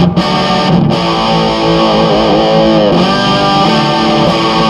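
PRS electric guitar played through a Marshall Lead 12 solid-state mini stack, ringing chords in the amp's classic Marshall tone. About two seconds in, the whammy bar dips the pitch and brings it back up.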